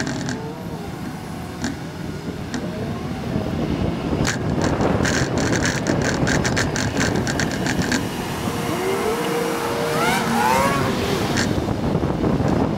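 Road and traffic noise from a moving vehicle, broken by quick runs of clicks and knocks, with a short rising whine a little after the middle.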